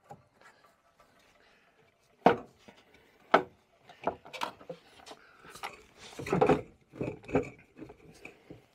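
Sharp knocks and clicks of the snowmobile's jack shaft and its bearing being handled: two single knocks about two and three seconds in, then a run of smaller clacks.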